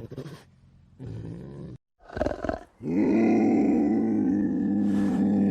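Edited string of animal calls: a few short calls cut off abruptly, then from about three seconds in one long, steady, deep call held without break.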